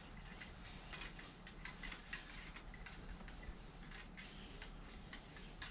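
Cleaning rod pushing a dry patch through a Mauser rifle's bore: faint, irregular light clicks and scrapes of the rod in the barrel.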